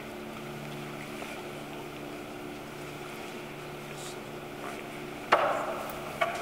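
Steady low hum made of several held tones. A sudden bump comes about five seconds in and a smaller one about a second later.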